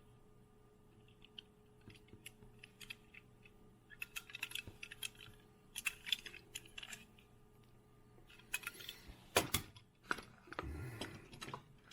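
Light clicks and clinks of small die-cast metal toy cars being handled and set down on a hard surface, with a couple of louder knocks near the end.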